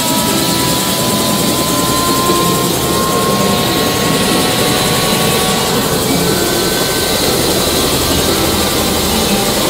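Helicopter cabin noise: a steady, loud rush of engine and rotor noise heard from inside the cabin, with a faint whine that rises slightly in pitch over the first few seconds.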